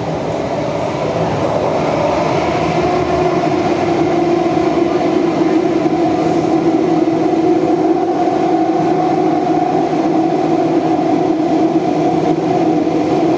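Kawasaki–CRRC Qingdao Sifang CT251 metro train running between stations, heard from inside the passenger car: a steady rumble with a droning hum that grows a little louder over the first couple of seconds, then holds steady.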